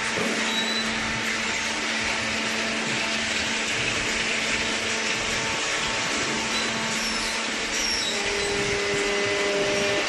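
Steady whirring machinery noise from a running cardboard baling line, with a faint constant hum; a higher steady tone joins about eight seconds in.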